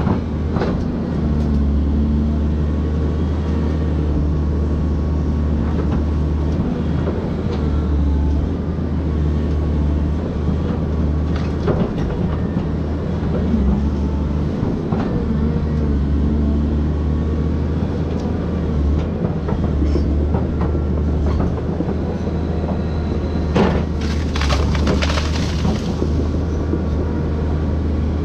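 Volvo excavator's diesel engine running steadily under load, heard close up from the machine, with scattered knocks and clanks. About three-quarters of the way through comes a brief burst of crackling.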